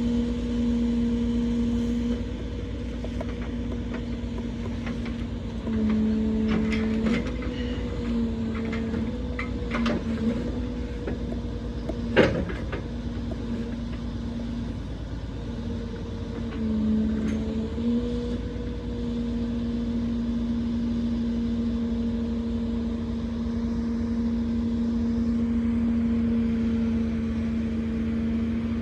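Truck engine running at a raised, steady speed to drive a truck-mounted crane's hydraulics, its note dipping briefly under load several times as crane movements are worked. Several metallic clanks, the loudest a sharp knock about 12 seconds in, from the pallet fork and load.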